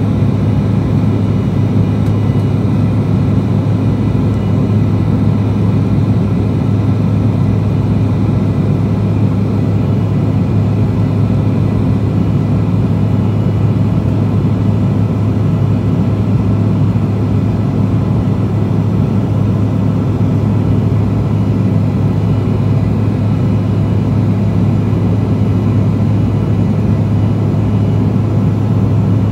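The two GE CF34-8E turbofans of an Embraer E175 and the rush of air over the fuselage, heard inside the cabin as a steady drone with a strong low hum.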